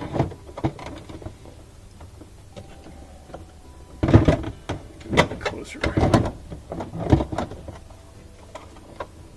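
Handling noises from a refrigerator's plastic rear freezer panel and its wiring being worked into place: a run of rubbing, scraping and knocks in the second half.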